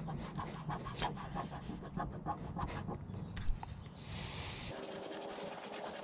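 Fingers rubbing vinyl wrap film smooth onto a car door handle: a quick run of short scratchy rubs, about four or five a second, over a low rumble that cuts off suddenly near the end.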